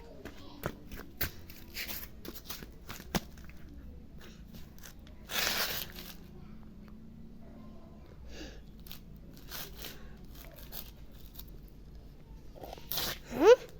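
Handling of a toy excavator: scattered clicks, knocks and scraping, with a short rustling crunch about five seconds in. Near the end a brief squeak rises quickly in pitch, the loudest sound here.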